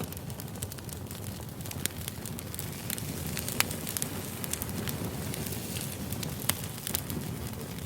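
Campfire sound effect: a wood fire crackling, a steady hiss with irregular sharp pops.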